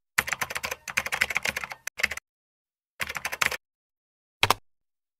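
Typing on a computer keyboard: two quick runs of keystrokes with a short pause between them, then a single click near the end.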